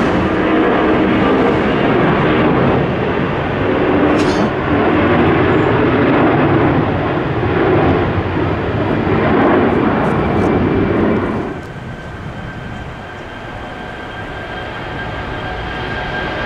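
Jet airliner engines running loud and steady, then the level drops suddenly about eleven seconds in to a quieter rumble with a thin steady whine.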